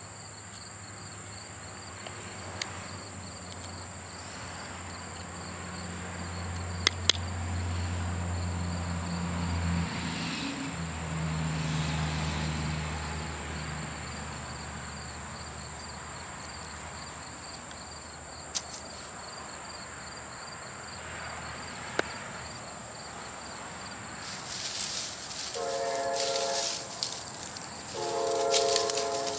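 Insects chirping steadily in the grass, with a few sharp clicks from a knife carving a wooden stick and a low rumble that swells and fades in the middle. Near the end a loud rush of noise rises and two long horn blasts sound.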